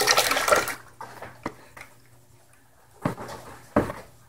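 Thick padaek (fermented fish sauce) pouring and splashing from a plastic bowl into a large aluminium stock pot, stopping about a second in. A few short knocks and scrapes of a spatula against the bowl and the pot follow.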